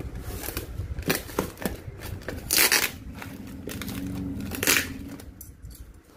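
Cardboard box sealed with packing tape being torn open by hand: crinkling and rustling with three sharp rips, the loudest about two and a half seconds in.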